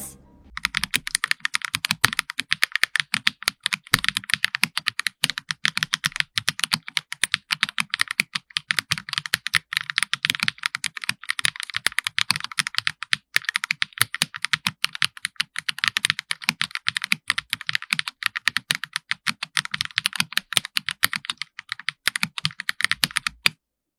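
Fast, continuous typing on an Akko Alice Pro Plus mechanical keyboard with lubed and filmed Akko Crystal switches and Akko ASA Clear keycaps: a dense, steady run of key clacks that stops shortly before the end.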